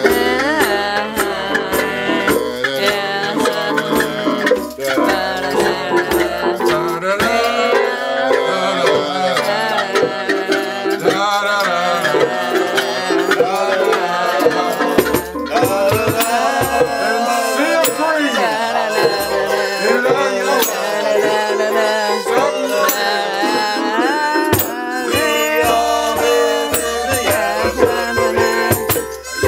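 A small improvised ensemble playing loose, chaotic music: an acoustic violin bowing wavering, sliding lines over rattling, clattering hand percussion and toy instruments.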